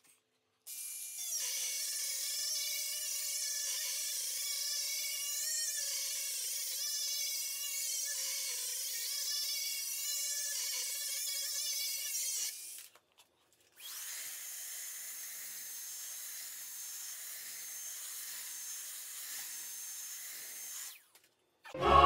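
Dremel rotary tool with a sanding disc running against the wooden speaker opening of a subwoofer cabinet, grinding it wider. Its high whine wavers as the tool is worked around the edge, stops briefly a little past halfway, then runs again more quietly until it cuts off near the end.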